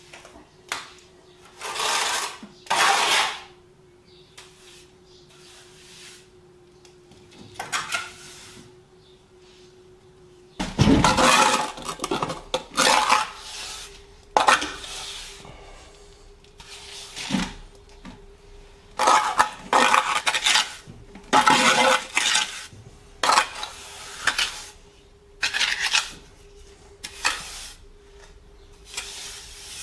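Metal trowel scraping and clinking against render in irregular short strokes, over a dozen of them, while a wall is being rendered. A faint steady hum runs underneath.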